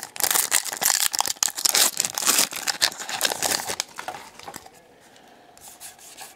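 Trading-card pack wrapper being torn open and crinkled by hand, busy and crackly for about four and a half seconds. Then it drops to quieter rubbing as the cards slide against each other.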